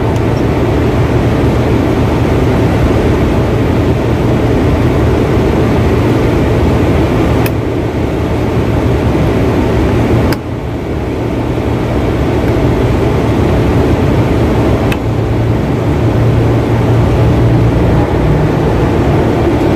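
Steady drone of rooftop air-conditioning machinery running, a constant low hum under a broad whirring noise, with a few faint ticks.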